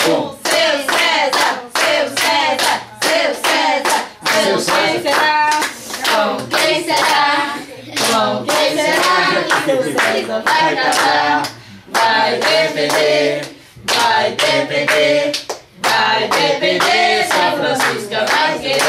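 A small group of people clapping in a steady rhythm while singing a Brazilian birthday chant together.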